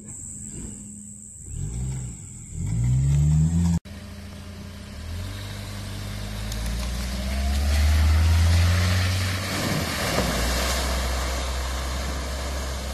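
Daihatsu Terios 4WD engine revving in rising pulls as it climbs out of a deep rut, then after a sudden cut another Terios pulling away through mud and puddles, its engine running steadily and getting louder with tyres splashing.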